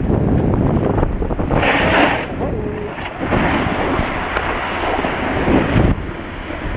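Wind buffeting the camera's microphone while moving down a snowy slope, mixed with the hiss of a snowboard sliding over snow. A brief, brighter hiss comes about two seconds in.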